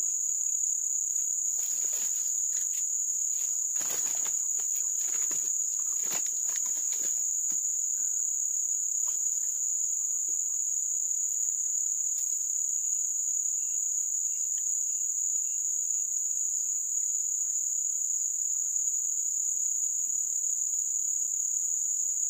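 A steady, high-pitched chorus of insects drones without a break. Faint scattered clicks and rustles come in over the first several seconds, and a short row of faint chirps comes midway.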